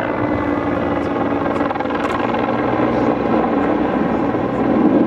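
Aircraft flying over, a loud, steady engine noise with a steady low hum, growing louder near the end.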